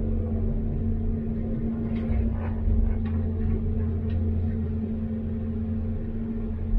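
Caterpillar 329D excavator's diesel engine running steadily with a low, even hum. A few faint clinks come about two to four seconds in.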